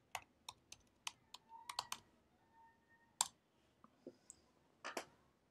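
Typing on a computer keyboard: a quick run of about eight keystrokes in the first two seconds, then a few separate, louder clicks a second or more apart.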